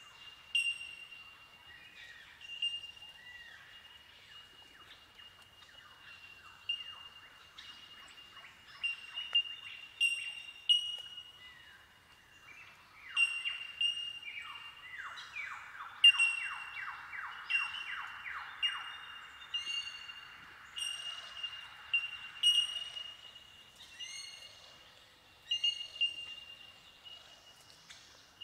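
A colony of Bell Miners (bellbirds) giving their ringing, bell-like 'tink' calls over and over, many birds overlapping into a windchime-like chorus. Midway a fast series of lower, falling notes runs for a few seconds beneath the tinks.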